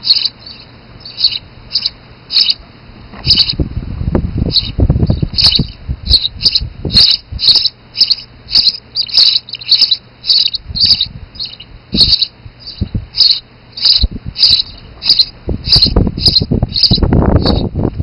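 Sparrow nestlings begging: a rapid, steady series of short, high chirps, about two to three a second, as they gape for food. Rustling and knocks in the hay nest come in a couple of bursts, loudest near the end.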